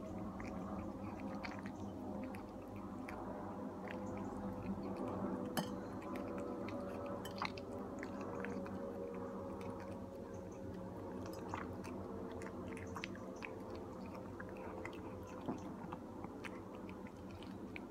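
Ginger cat eating fast from a bowl: quick, wet chewing and lapping with many small clicks and smacks. A steady hum runs underneath.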